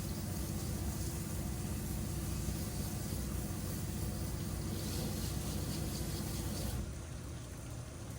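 Pressure-washing rig's engine running steadily while water sprays with a hiss. The spray stops about seven seconds in and the engine keeps running.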